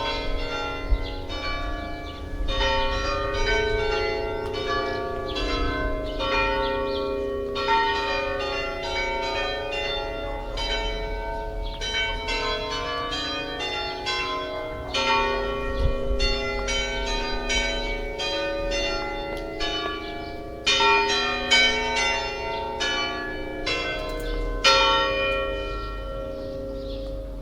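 Church bells ringing a peal, strike after strike overlapping, each with a long ringing tail, over a low rumble.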